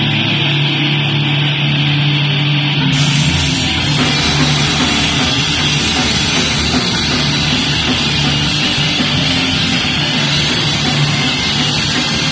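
Crust punk band playing live with distorted electric guitars, bass and drum kit, loud and dense. A held, droning chord opens the passage, and about three seconds in the full band comes in.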